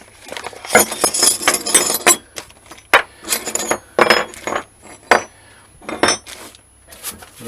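Aluminium sump guard parts and small metal mounting hardware clinking and rattling as they are handled and set down: a run of clattering in the first two seconds, then single sharp knocks about once a second.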